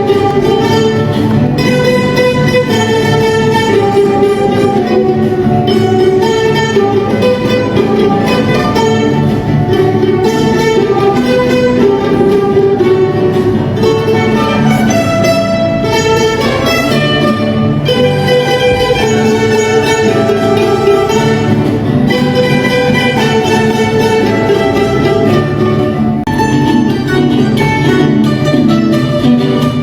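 Live ensemble music with guitars and violins playing together.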